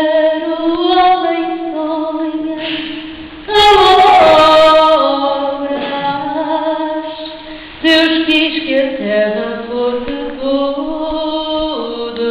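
A woman singing a cappella: a slow solo melody of long held notes with vibrato, stepping between pitches. Phrases come in loudly about three and a half and eight seconds in, then fade off.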